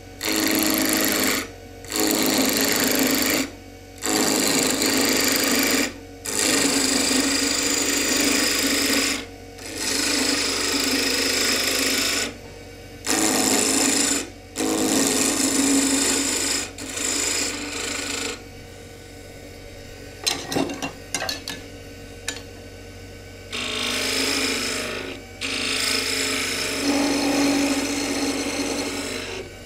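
Turning tools cutting a small oak spindle on a spinning wood lathe, in repeated bursts of a second or two with short gaps where the lathe runs on. Around the middle there is a quieter spell of about five seconds with a few light clicks, then cutting resumes.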